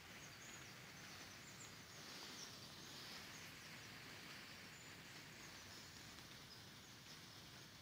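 Near silence: faint outdoor ambience, with a few faint, short, high bird chirps scattered through it.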